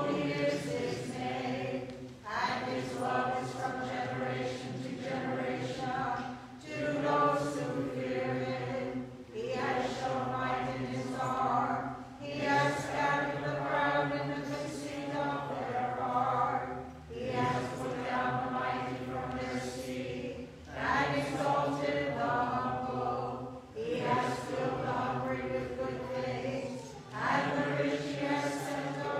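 Voices singing an unaccompanied Byzantine chant hymn in phrases of a few seconds, with short breaks between them.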